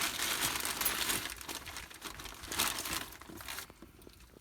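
Crinkling and rustling with many small clicks as the device's wiring is handled, dying away near the end.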